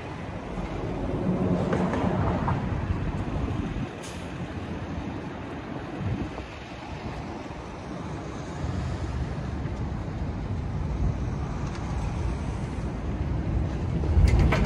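A vehicle in motion: a steady low rumble with rattling noise over it, swelling and easing, with a sudden loud jolt near the end.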